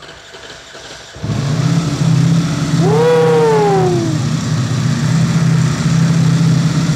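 Ducati Streetfighter V4 SP's 1,103 cc Desmosedici Stradale V4 starting: a second of cranking, then it catches about a second in and idles loud and steady, with a brief whine rising and falling about three seconds in. The loud clattering idle, dry clutch rattle included, sounds like a broken engine but is normal for this dry-clutch Ducati.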